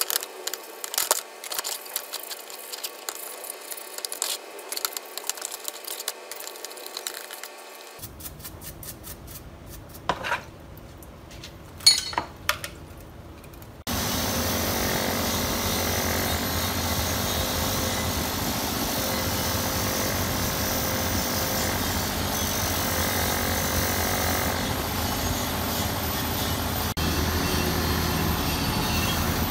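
Hand tools and metal parts clicking, knocking and scraping, then about halfway through a power tool starts and runs steadily.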